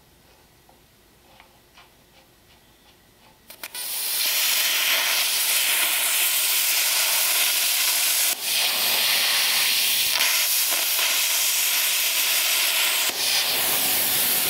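A few faint ticks, then a couple of clicks about three and a half seconds in, and a loud, steady hiss of rushing compressed air starts. The hiss dips briefly twice and runs on.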